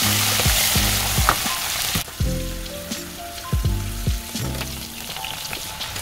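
Sliced garlic frying in hot oil in a pan, with a steady sizzle that is loud for the first two seconds and then drops suddenly to a quieter sizzle. A wooden spoon stirs the pan later on.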